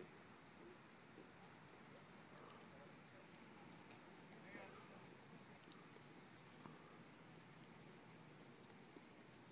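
Faint outdoor insect chorus: a steady, high-pitched chirring that pulses rapidly and evenly, with faint distant voices underneath.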